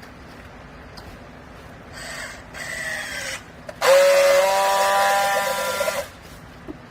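Hydraulic vertical baler working: two short hissing bursts with a falling whine, then about two seconds of loud steady whine over a hiss that cuts off suddenly.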